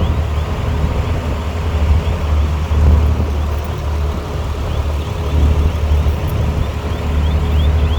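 A heavy-equipment diesel engine running steadily with a deep low drone. Faint high chirps repeat about three times a second near the start and again near the end.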